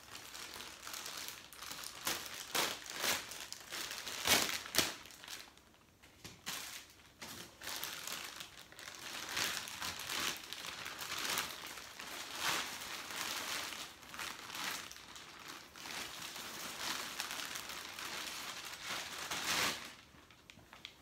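Clear plastic vacuum-pack bag crinkling and rustling in irregular bursts as a foam pillow is worked out of it by hand, dying away near the end.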